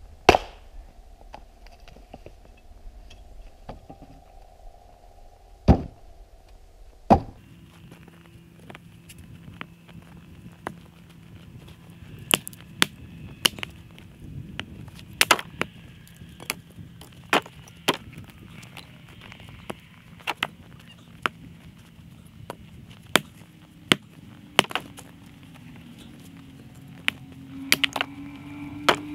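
Axe striking and splitting firewood rounds on a chopping block: three heavy blows in the first seven seconds, then a long run of lighter, sharper knocks as the wood is split down.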